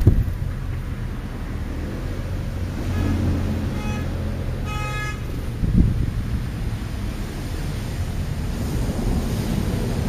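Steady low outdoor rumble of wind on the microphone, with a thump at the start and another shortly before six seconds. A few short pitched calls sound about once a second between three and five seconds in.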